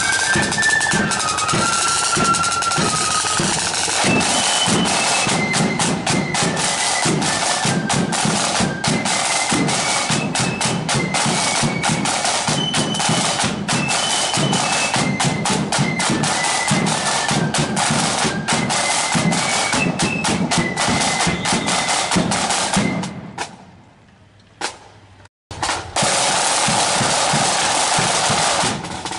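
Marching flute band playing: flutes carry a tune over snare drums beating and rolling. The sound drops out for about two seconds near the end, then the band comes back in.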